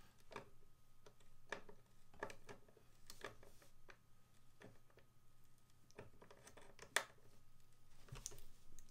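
Hand-held Phillips screwdriver turning a screw through a plastic skateboard rail into the deck: faint, irregular clicks and scratchy turning strokes, with one sharper click about seven seconds in.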